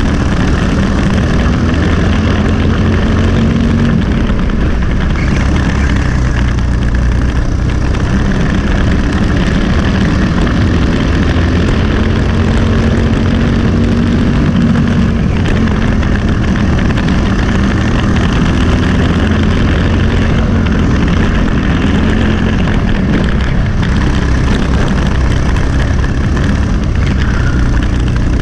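Briggs & Stratton LO206 single-cylinder four-stroke kart engine running steadily under race load, heard onboard the kart, its pitch rising and falling slightly as the kart goes through the corners.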